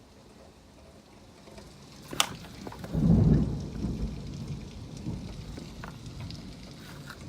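Thunder: a sharp crack about two seconds in, then a loud, deep rumble that peaks a second later and slowly dies away, over the steady hiss of rain.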